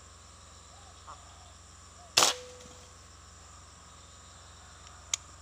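A single air-rifle shot about two seconds in: a sharp crack with a brief ring after it. A faint click follows near the end.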